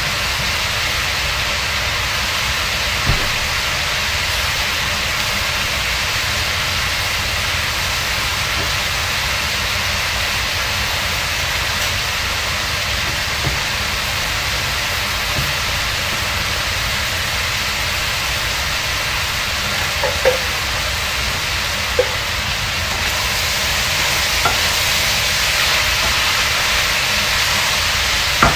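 Yardlong beans and squash sizzling in a hot frying pan, a steady hiss with a few light clicks. Near the end a wooden spatula stirs the vegetables, and the sizzle grows slightly louder.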